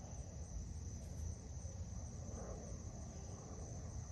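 Insects trilling steadily on one high-pitched note, over a low rumble.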